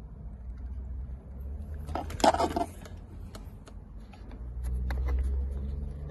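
A Torx screw being started by hand into plastic steering-column trim: faint clicks and scraping of the bit and fingers, with one short, louder scraping rustle about two seconds in.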